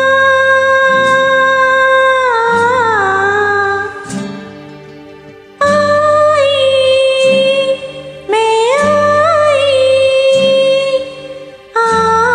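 Karaoke singing: a woman's voice holds long, high, wordless notes in four phrases, each ending in a falling or wavering ornament, over a soft backing track of sustained chords.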